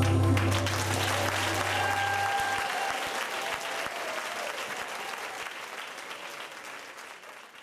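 Audience applauding as the last low note of a gospel song dies away in the first couple of seconds; the applause grows gradually fainter.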